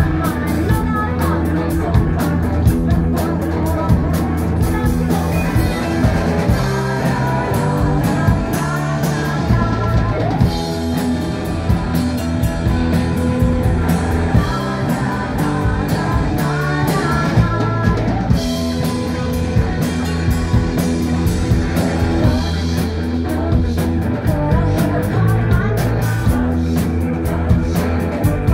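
Live rock band playing: electric guitar and drum kit, with a woman singing lead. The sound is loud and muddy from a phone's microphone.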